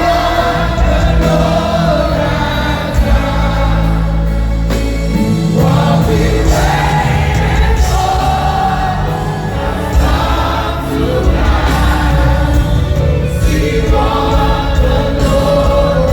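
Live gospel music: a choir and singers over a band with steady bass, continuous worship singing.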